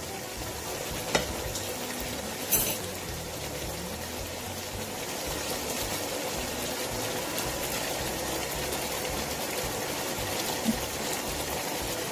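Chicken curry gravy sizzling steadily in a pot on the stove, with two sharp taps of the utensil against the pot about one and two and a half seconds in.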